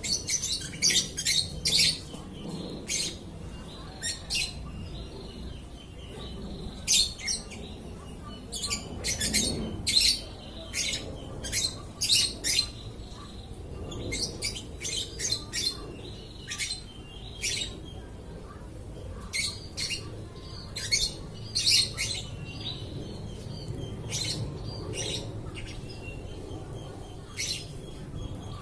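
Lovebird calling nonstop: short, sharp, high-pitched chirps and squawks in quick runs of several calls, with brief pauses between the runs.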